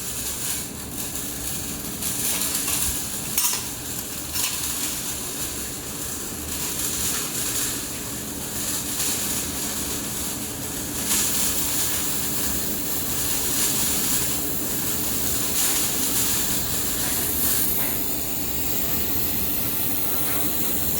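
Handheld air-cooled laser welder running a weld bead: a steady crackling sizzle with irregular louder flares, over a steady low hum.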